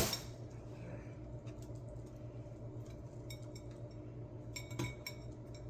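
Light, scattered clicks and taps of fruit and a bowl being handled and sorted, after a sharp knock at the start, over a faint steady low hum.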